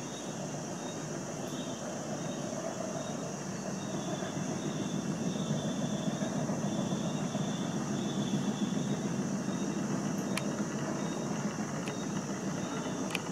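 Outdoor night ambience: a steady low rumble of distant vehicles that swells in the middle, under a high steady hiss and a faint chirp repeating about once a second. A few faint clicks near the end.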